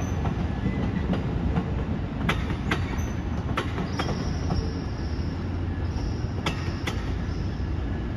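Amtrak passenger train rolling past: a steady low rumble broken by sharp clicks of wheels over rail joints. From about four seconds in, a faint high wheel squeal comes and goes.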